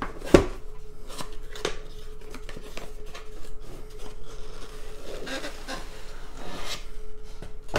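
Cardboard product box being opened by hand: a sharp knock about half a second in, then scraping, rubbing and light clicks of the flaps and inner tray as they are folded back. A faint steady hum sits underneath.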